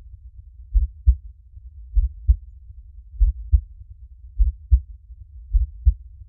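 Slow, steady heartbeat, each beat a deep double thump (lub-dub), repeating a little under once a second, over a faint low rumble.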